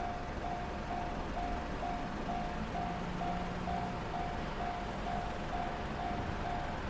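Japanese railway level-crossing warning bell ringing in a steady electronic 'kan-kan' of one repeated tone, about two strikes a second. It signals that the crossing is closed for a train.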